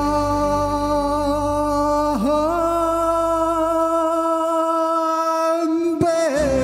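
A man singing a slow ballad live, holding two long sustained notes with a quick dip in pitch between them about two seconds in and another near the end, over a soft backing track whose low notes drop away before returning at the end.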